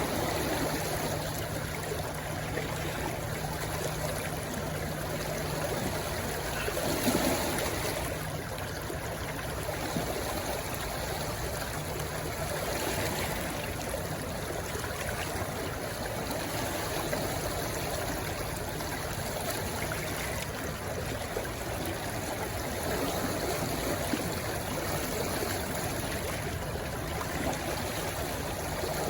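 A shallow stream rushing and gurgling steadily where it flows into the sea, with small swells in the flow.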